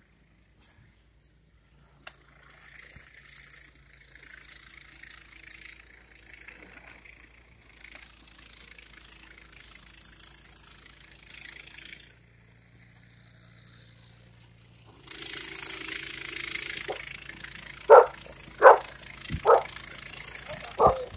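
Footsteps crunching through deep snow over the faint steady hum of a snowblower engine, with a loud rush of noise for about two seconds past the middle. A dog barks four times near the end.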